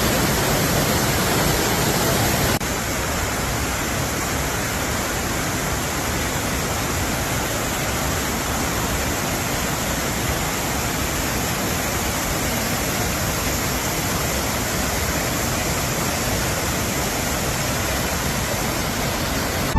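Waterfall: a steady, dense rush of falling water, dropping slightly in level at a cut about two and a half seconds in.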